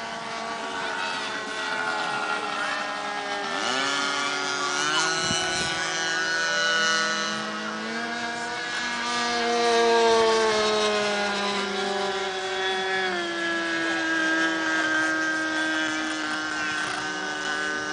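Two radio-controlled model airplanes' OS .91 glow engines running at high power, each with its own pitch. The pitches rise and fall as the planes pass, with sharp swoops about four seconds in and again near thirteen seconds.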